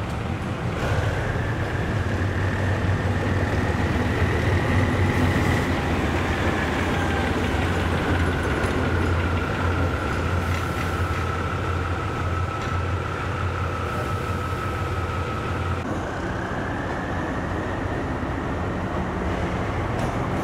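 Diesel locomotive engine running as the locomotive rolls slowly past: a steady low rumble with a high whine that rises, then falls and holds. The sound changes abruptly about 16 seconds in to another diesel locomotive at the platform, its whine rising again.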